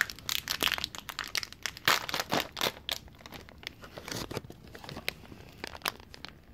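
Packaging of a dog advent calendar being crinkled and torn open by hand: dense rapid crackles for the first three seconds, then sparser ones.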